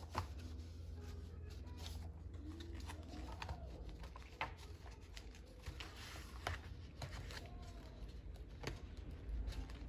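Paper workbook pages being handled and fitted onto the open rings of a Five Star Flex Notebinder: soft paper rustling with scattered light clicks and taps.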